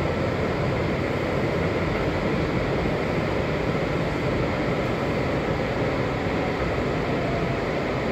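Steady rumble of a Washington Metro 7000-series railcar heard from inside the car as the train rolls along a station platform, pulling in to stop.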